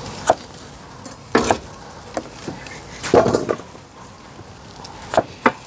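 Several irregular knocks and clinks of kitchen work: utensils and dishes knocking on a wooden work table and cutting board while vegetables are prepared.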